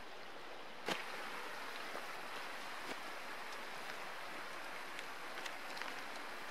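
Steady rushing of a nearby stream, with a sharp click about a second in and a few faint ticks and rustles as a paper map is handled.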